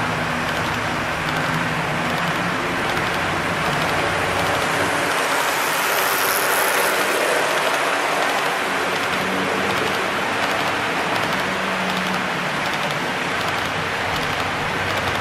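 Model freight train of covered hopper cars rolling past on the layout track: a steady rolling rattle of wheels on the rails.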